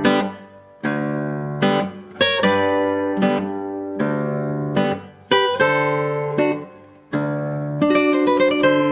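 Background music on acoustic guitar: plucked chords and quick runs of notes, each ringing out and fading before the next.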